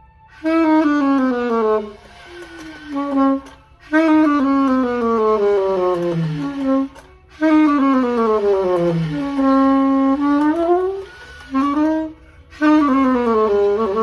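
Yanagisawa 901 saxophone being play-tested before a service: four phrases of notes, each mostly running down into the low register, with short breaks between them. The horn has leaking pads and poorly regulated, hard-hitting keys in both stacks and the bell keys, which leave it not playing quite right.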